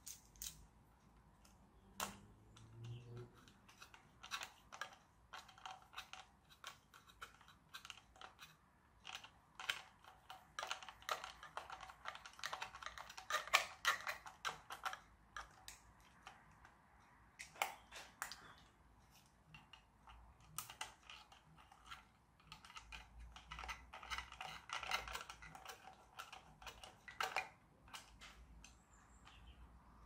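Small plastic parts and screws of a 1:16 scale radio-controlled toy tractor being handled during disassembly: irregular light clicks and rattles, busiest in two spells, one a little before the middle and one in the last third.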